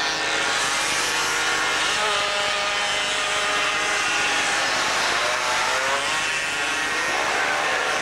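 Several 50 cc two-stroke racing mopeds running hard around the circuit, their engine notes overlapping and rising and falling in pitch as they pass and take the corners.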